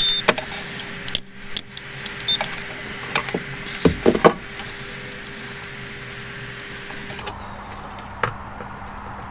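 Multimeter test leads and wiring being handled at a car's fuel pump connector: scattered light clicks and rattles, busiest in the first half, over a faint steady hum that drops in pitch about seven seconds in.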